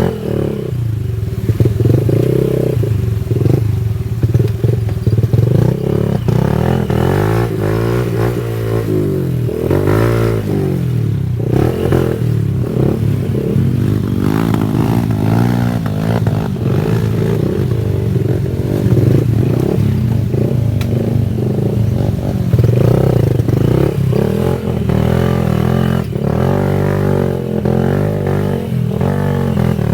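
Honda Wave 110i's single-cylinder four-stroke engine running under way, its pitch rising and falling again and again as the throttle is opened and eased.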